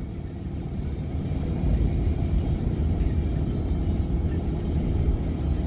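Car driving on an open road, heard from inside the cabin: a steady low rumble of engine and tyre noise.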